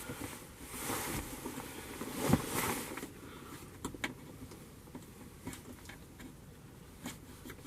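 Hands handling a festoon LED bulb in a car dome light's plastic housing: rustling and light scraping for the first few seconds, then a few faint scattered clicks.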